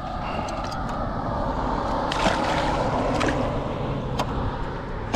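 Water splashing and swirling as a landing net is dipped over the side of a kayak and a carp is let out of it. The splash is loudest about two seconds in, with a few small knocks around it.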